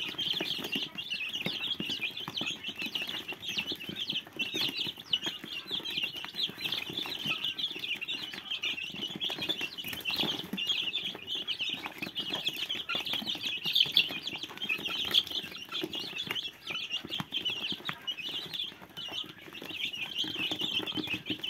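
A brood of young chicks peeping constantly in a dense chorus while they feed, with scattered light pecking taps at the feed dish.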